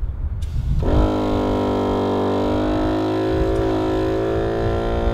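Air compressor starting about a second in and running steadily, a buzzing hum, as it pumps air through a tyre-inflator line into a small coil-spring helper airbag.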